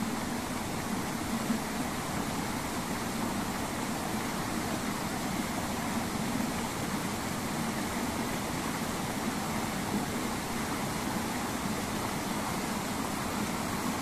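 A small mountain stream babbling steadily as it spills in little cascades over rocks.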